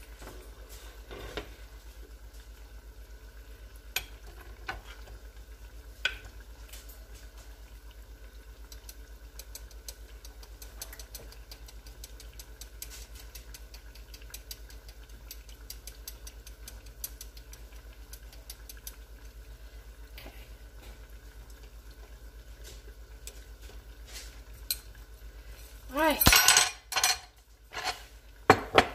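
Plantain turnovers frying in a small pan of oil, a steady faint sizzle, with scattered light clicks of dishes and utensils. Near the end comes a loud clatter and scrape as a jar and plates are moved on the stovetop.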